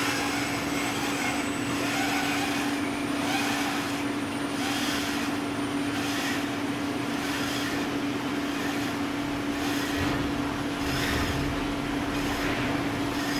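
Feeder section of a carton folder-gluer running: a steady motor hum under its moving belts, with a soft swish repeating a little less than once a second.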